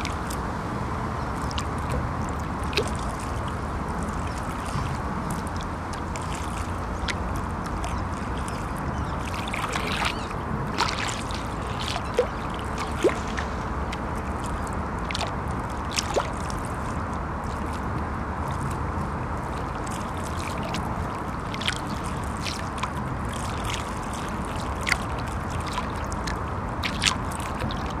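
River water lapping against the bank, with scattered small splashes and slaps, over a steady low rumble of traffic crossing a bridge.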